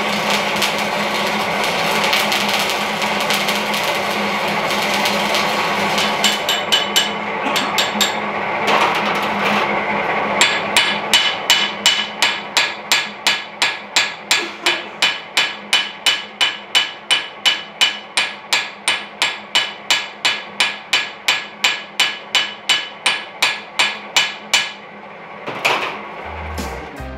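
An electric welding arc crackling and hissing as a bead is run on a steel anvil. From about ten seconds in, a small hammer strikes the fresh weld on the anvil in a quick, regular run of about three sharp blows a second.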